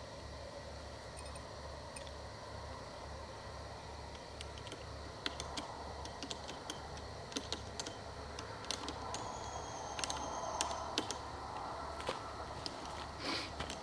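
Irregular small clicks and taps of hands fitting and tightening a clamp around a metal pole, getting busier about five seconds in, with a brief rustle near the end.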